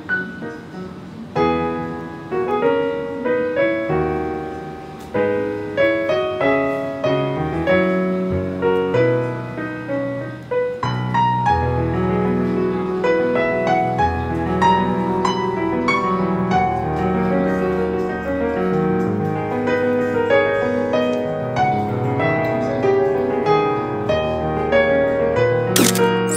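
Background piano music: a continuous melody over chords. A short, bright swish comes near the end.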